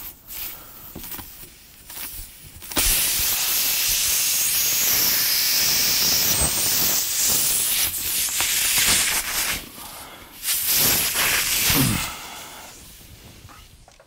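Air hissing loudly out of a punctured truck tire through the nail hole as a plug-kit reaming tool is worked in it. The hiss starts suddenly about three seconds in, runs steady for about five seconds, then comes and goes in shorter spurts before fading near the end.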